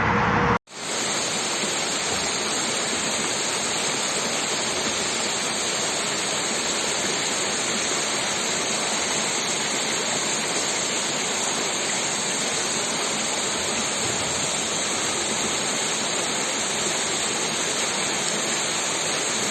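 Steady, even rushing of water, cutting in abruptly just under a second in.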